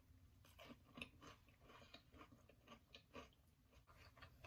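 A person chewing a mouthful of avocado toast on spinach, faint irregular soft crunches and mouth clicks.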